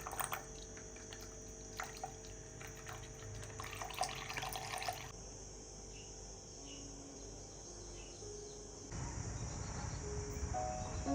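Water running and splashing in a sink, stopping about five seconds in. Soft, slow music notes come in near the end.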